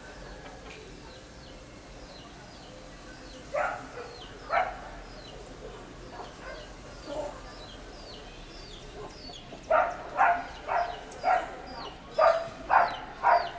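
Barking: two short barks about three and a half seconds in, a fainter one around seven seconds, then a run of about seven barks at roughly two a second near the end. Small birds chirp faintly throughout.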